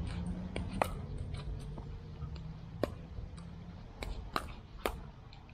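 Pickleball paddles hitting the ball in a rally: sharp single pops, a few spaced out, then three in quick succession about four seconds in, over a low steady hum.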